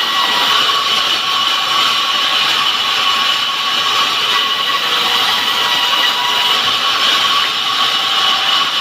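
Power saw cutting wood, running without a break: a steady high-pitched whine over a rasping noise.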